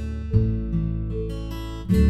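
Background music: strummed acoustic guitar, with a new chord struck a little after the start and again near the end.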